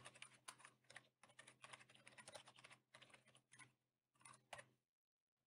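Faint computer-keyboard keystrokes in quick, uneven typing that stops just before the end.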